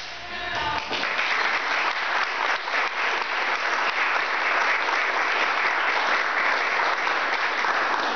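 Music ends about a second in and an audience applauds steadily for the rest of the time.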